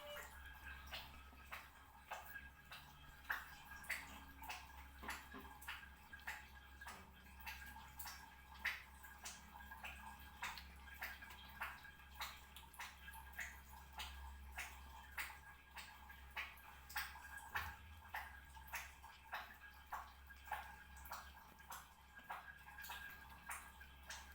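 A cat eating, its chewing and lip-smacking making a steady run of short clicking smacks, a few each second.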